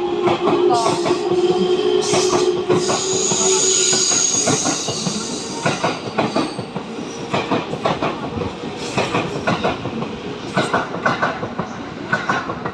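E231 series electric commuter train pulling out and running past, its wheels clattering over rail joints in a rapid, irregular stream of clicks. A steady hum and a high whine sound for the first four seconds, then the clatter slowly gets quieter.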